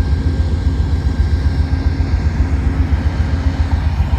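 Amtrak P42DC diesel locomotive idling at a standstill: a steady engine drone over a pulsing low rumble.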